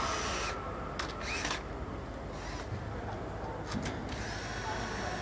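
Steady factory background noise with a few short clicks and knocks from a tool working the bolts on a small engine's flywheel housing.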